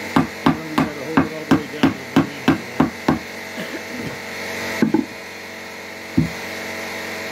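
Claw hammer driving a nail through a wooden cleat into pine boards: about eleven quick strikes, roughly three a second, stopping a little after three seconds in. Two single knocks follow later.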